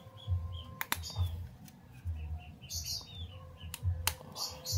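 Hard plastic PVC valve parts clicking and scraping as they are pressed together by hand around a stiff spring, with a few sharp clicks and two short rasps. Small birds chirp in the background.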